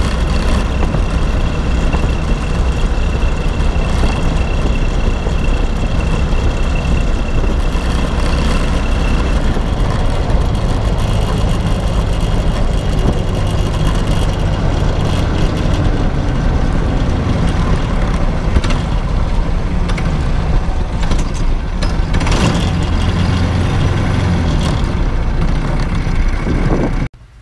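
A go-kart's Honda GX200 single-cylinder four-stroke engine running steadily under a broad rush of noise. The sound cuts off abruptly near the end.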